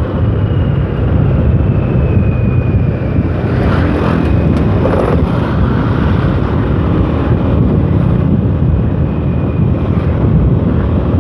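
Motorcycle riding along a concrete road, heard from the rider: steady engine, tyre and wind noise. A faint high whine slowly falls in pitch over the first few seconds.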